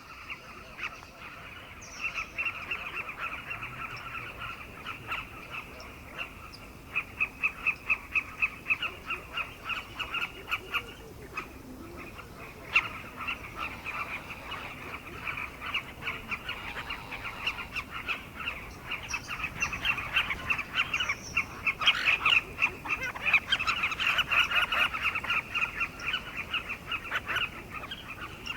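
A breeding colony of carmine bee-eaters calling, many birds at once in a dense, continuous chatter of short calls. The chatter swells a little past the middle and is busiest near the end.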